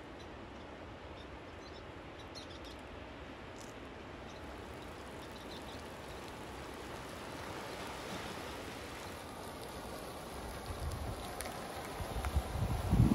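Flash-flood debris flow: muddy water rushing through a mass of branches and logs, a steady wash of noise that slowly grows louder. Wind buffets the microphone in gusts near the end.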